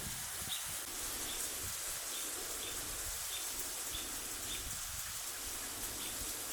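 Steady hiss of rain falling between thunder claps, with a short high chirp repeating about every two-thirds of a second.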